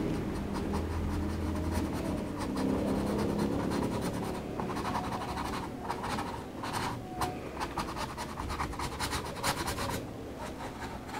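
A nylon flat brush scratching and dabbing acrylic paint onto a canvas in quick, short strokes from about four seconds in. Before that, a low motor hum dies away over the first few seconds.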